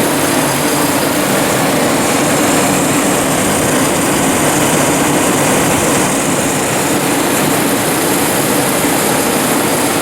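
Dynaflux R4000 air-cooled, 460-volt three-phase welding water cooler running: a loud, steady rushing noise with a steady hum, and no change in speed or load.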